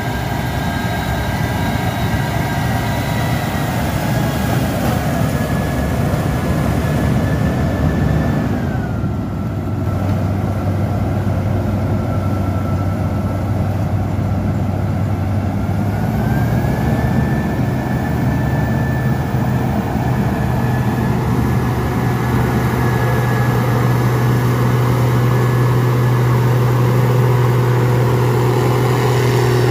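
Case 2555 cotton picker running steadily: a loud diesel engine drone with a high whine over it. The whine drops in pitch about nine seconds in and climbs back about seven seconds later.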